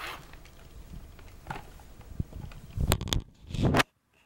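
Rustling and rubbing of a plush toy dog's fur as it is handled right against the microphone, with a small knock and then two loud scuffing bursts that cut off suddenly.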